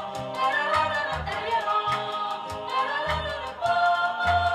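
Recorded song playing: a melody over bass notes in a regular rhythm.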